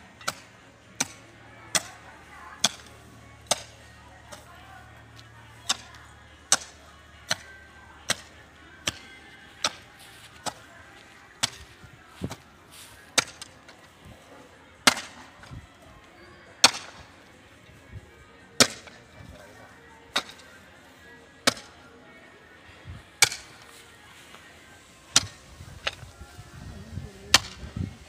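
Digging hoe chopping into hard ground, one sharp strike about every second at first, then slower, one every second or two.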